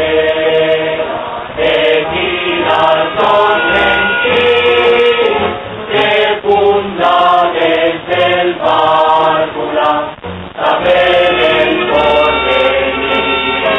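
A choir singing a song with instrumental backing and held bass notes.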